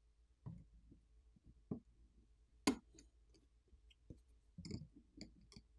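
Scattered faint clicks and light taps from small smartphone parts and tools being handled, with one sharper click about halfway through.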